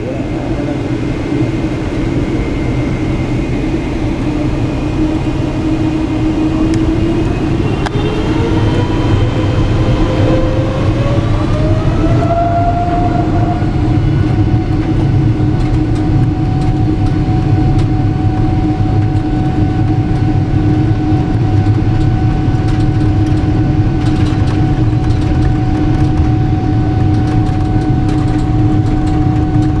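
Boeing 777 jet engine spooling up, heard inside the cabin over a steady rumble. Its whine rises in pitch for several seconds from about six seconds in, then holds at a steady pitch.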